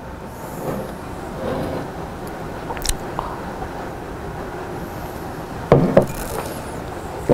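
A man drinking from a mug against a steady background hiss: small knocks and rustles of handling, a sharp click about three seconds in, and two short low throat sounds near the end.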